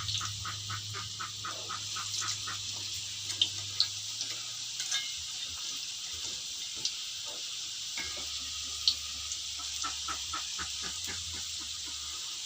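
Cassava pieces frying in hot oil: a steady sizzle with occasional sharp pops, and runs of quick, even ticking at the start and again about two-thirds of the way through.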